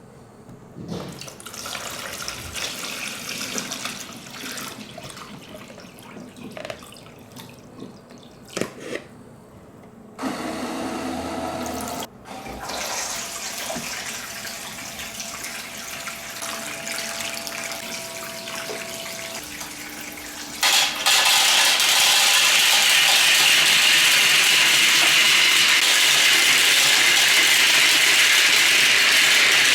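Water rushing down the plastic spiral slides of nagashi somen machines, fed by their electric pumps, with scattered clicks of marbles in the first third. About two-thirds of the way in, the water suddenly gets much louder and runs on as a steady rush.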